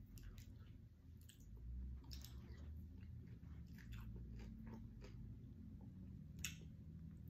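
Faint chewing of food, with small clicks of a spoon against a plastic takeout bowl and one sharper click near the end, over a low steady room hum.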